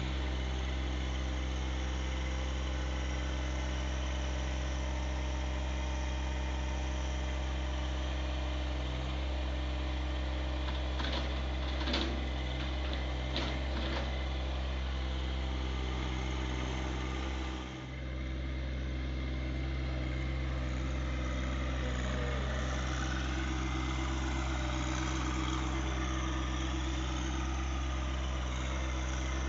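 John Deere 1025R sub-compact tractor's three-cylinder diesel engine running steadily while the loader pushes dirt, with a few sharp knocks just before halfway. The sound dips briefly a little past halfway.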